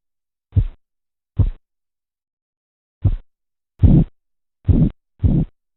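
Korotkoff sounds heard through a stethoscope during blood-pressure measurement: a series of low, pulse-timed thumps about one every 0.8 s. There is a longer pause after the second thump, and the later thumps are longer and louder.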